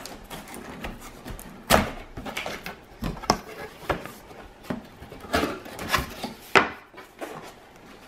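Cardboard box being opened by hand: flaps and an inner cardboard lid lifted and rubbing, with a series of irregular knocks and scrapes. The sharpest come a little under two seconds in and at about six and a half seconds.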